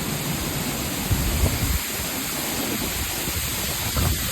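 Waterfall close by, a steady rush of falling water, with low buffeting on the microphone about a second in and again near the end.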